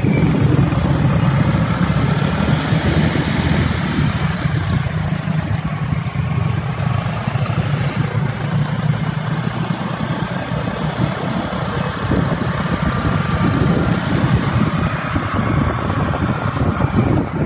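Motor scooter engines running steadily as a group rides along, a constant low engine hum with a hiss of road and air noise over it.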